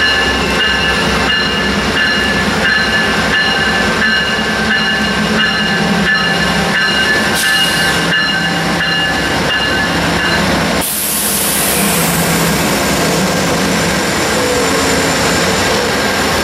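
Amtrak GE Genesis diesel-electric locomotives passing close by: the diesel engines run steadily while the wheels click over the rail joints at a steady, even rhythm. About eleven seconds in, a sudden loud hiss joins in.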